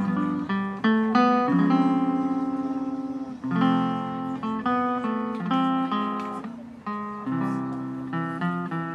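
Live instrumental trio of guitar, upright bass and drums playing an Americana medley. The guitar carries the melody in plucked notes and chords.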